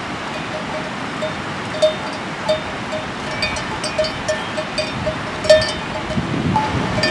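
A livestock bell on a water buffalo clinking irregularly, about three times a second, with one sharper clink past the middle. A rushing river runs steadily underneath.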